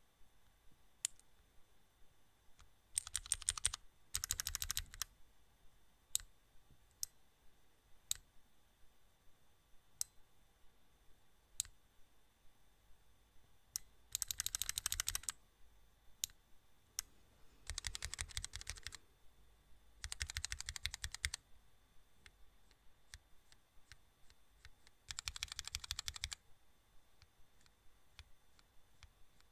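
Scattered single sharp clicks, with six bursts of rapid clicking lasting about a second each: two close together about three seconds in, then others spread through the rest.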